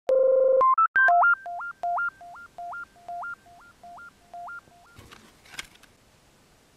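Short synthesized intro jingle of electronic beeps: a held tone, then a two-note low-high beep figure repeating about twice a second and fading away like an echo. Near the end there is a faint rustle and click.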